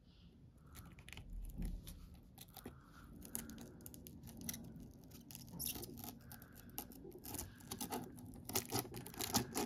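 Quiet close-up handling noises: small clicks, taps and crinkles of wire mesh and tape being pressed into a small vent frame with a metal hand tool. They come closer together near the end.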